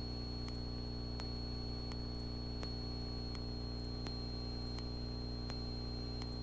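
Steady hum of a light aircraft in flight as picked up on the cockpit audio, with faint static and faint ticks about twice a second.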